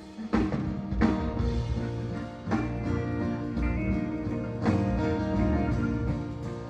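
Live band with guitars and drums playing the instrumental introduction of the song. The full band comes in loud just after the start, following a quieter passage, and keeps a steady beat, with no singing yet.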